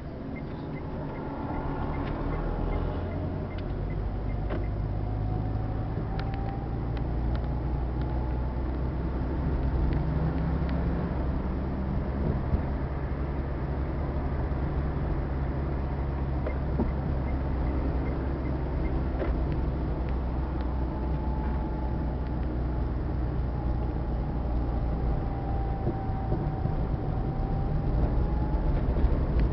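Engine and road noise heard from inside a moving vehicle's cabin: a steady low rumble that grows louder over the first few seconds as it gathers speed, with a faint whine that comes and goes twice.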